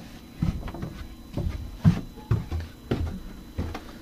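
Footsteps on wooden attic stairs: a string of dull thuds, roughly two a second, unevenly spaced.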